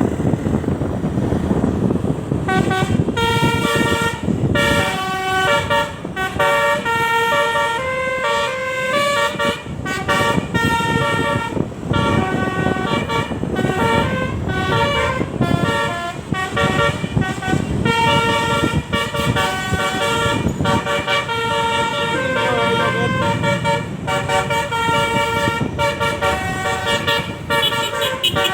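Indonesian bus 'telolet' multi-tone air horns playing quick stepped melodies, starting about two and a half seconds in and carrying on without a break, over steady background noise.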